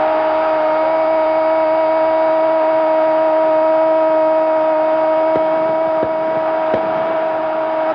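A sports commentator's drawn-out shout of "¡campeón!", one vowel held on a single steady, loud note for about eight seconds over stadium crowd noise.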